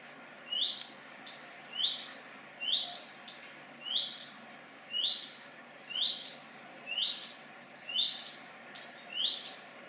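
Redstart, which the filmer takes for a fledgling, repeating one short upward-sweeping whistle about once a second, the same note over and over.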